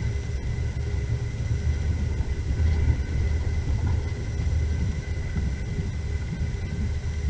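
Passenger train running along the track, heard from inside the carriage as a steady low rumble.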